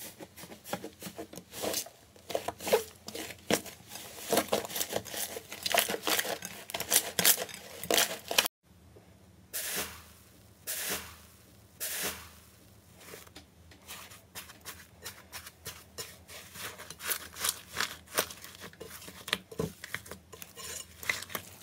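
Slime being worked by hand, with dense crackling and popping as hands knead and press a puffy inflated slime. After a short break about eight seconds in, a fist pushes through a foamy slime crust with tearing, crackling bursts, followed by lighter crackles as the slime underneath is spread.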